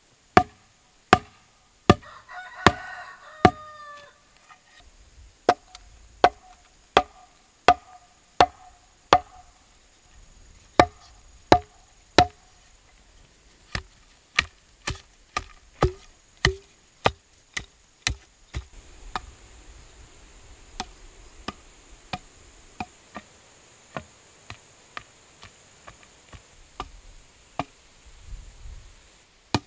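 Heavy wooden pole driven down into garden soil again and again, a sharp knock about every two-thirds of a second. A rooster crows once about two seconds in.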